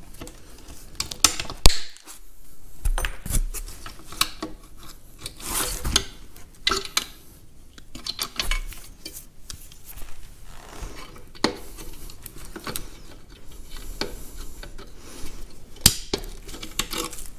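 Pliers and old tie wire clinking and scraping against rusty perforated steel tractor foot plates as the wire is twisted and pulled free. There are irregular metal clicks and taps, with the sharpest one about two seconds in and another near the end.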